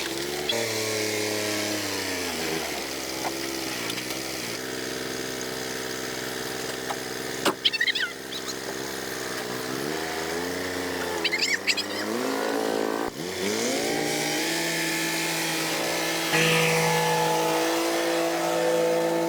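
A motor running steadily, its pitch dropping and climbing back several times as its load or speed changes. There is a sharp click about a third of the way in and a few short high squeaks near the middle.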